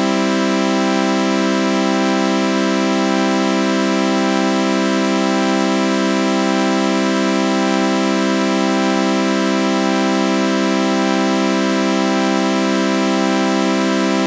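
A synthesized sawtooth-wave chord with a flanger effect, held as one steady, unchanging drone with a faint, regular sweeping ripple from the flanging.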